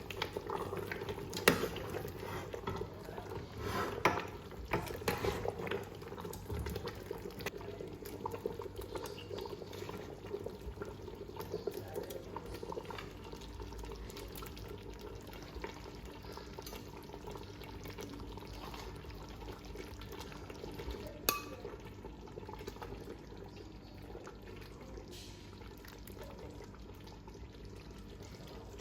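A pot of yam porridge bubbling as it cooks on the stove, a steady simmering hiss. A few sharp knocks come through it, twice in the first few seconds and once about two-thirds of the way through.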